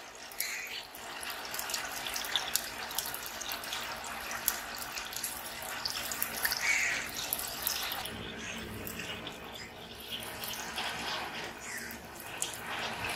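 Chopped onions frying in hot oil in a steel frying pan: a steady sizzle with frequent small crackles.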